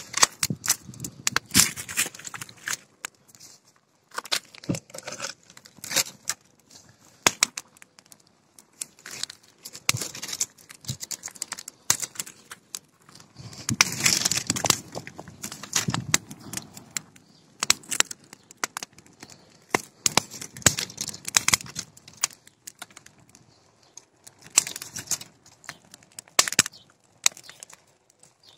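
A bonfire of dry acacia branches and old boards crackling, with many irregular sharp snaps and pops and a longer rush of noise about halfway through.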